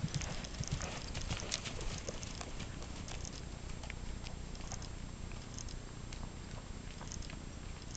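Steady low rumble of wind on the microphone, with scattered soft clicks of a trotting horse's hooves in a sand-and-gravel arena, most frequent in the first couple of seconds.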